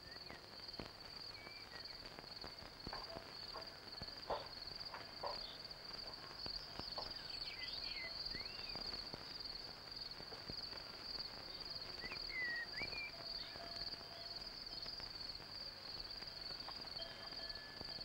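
Faint outdoor evening ambience: crickets trilling steadily in one continuous high trill, with a few short bird chirps and some soft knocks a few seconds in.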